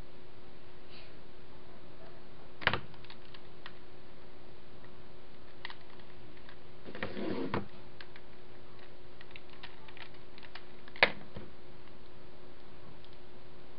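Plastic twisty puzzles (Skewb, 3x3 Rubik's cube, Pyraminx) being turned fast by hand: light rapid clicking of the pieces, with two sharper knocks about 3 s in and about 11 s in. A steady low hum lies underneath.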